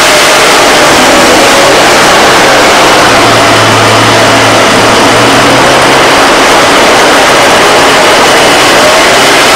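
BMW 330i straight-six engine running at idle and being accelerated, with the rattle that the owner puts down to its VANOS variable valve timing unit and likens to a rattlesnake.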